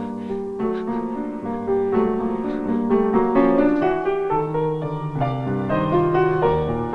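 Background piano music: a slow melody over a bass line, starting just after a brief hush.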